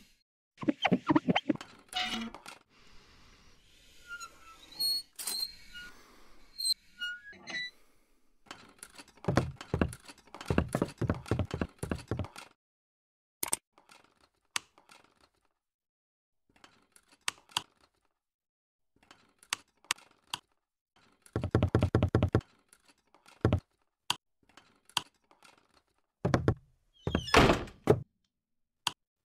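Foley effects for animation: a string of small mechanical clicks and squeaks as the goggles' lens device is adjusted, then runs of rapid knocking clatter, scattered single clicks and thunks, with a door sound near the end.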